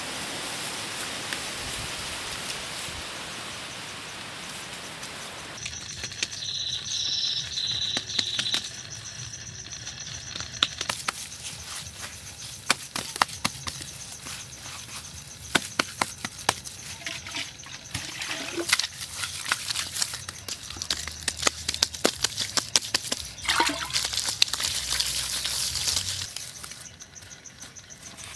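Hands smearing and patting wet mud plaster onto a clay wall: a wet rubbing hiss at first, then many scattered slaps and clicks, with a steady high tone in the background from about five seconds in.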